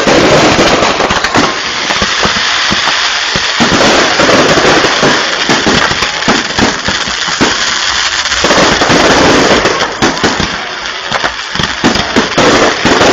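Fireworks going off in a dense, continuous barrage of bangs and crackles, easing slightly about ten seconds in.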